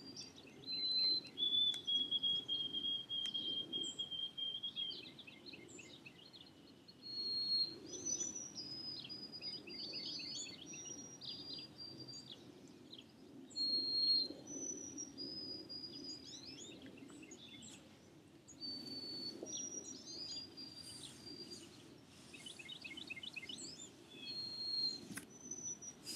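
Songbirds singing: clear whistled notes, each held briefly at a different pitch, broken by quick trills, over a faint low background hum.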